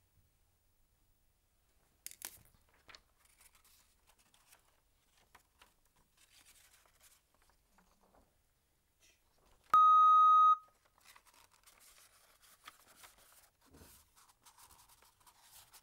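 Faint paper rustling as a sheet is handled, with a sharp click about two seconds in. Near ten seconds in, a single electronic beep sounds steadily for just under a second: the game's timing signal during the discussion minute.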